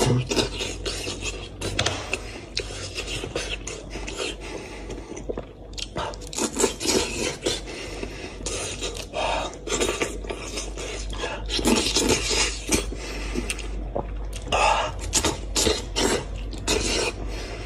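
A person eating meat off a braised goat's head by hand: chewing and sucking meat from the bone, with irregular wet mouth clicks and short noisy bursts.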